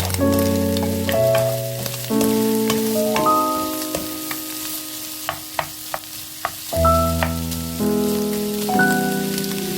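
Sliced pig stomach sizzling as it is stir-fried in a pan, with a few sharp utensil clicks against the pan about five to six seconds in. Background music of held chords that change about once a second is louder than the frying.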